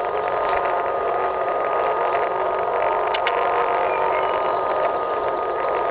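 Unexplained steady droning hum heard from overhead, with a single held tone running through it and no rise or fall.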